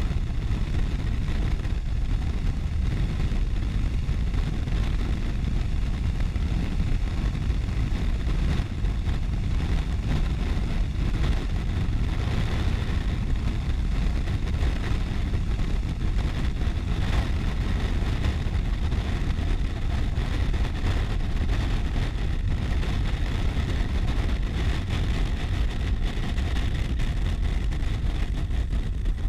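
Steady wind noise over a helmet-mounted camera's microphone, with a police motorcycle's engine and tyres running underneath at motorway speed.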